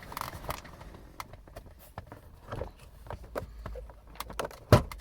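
Aluminium dashboard trim strip being pulled off its push-fit clips by hand, with scattered small clicks and knocks and one sharp snap near the end.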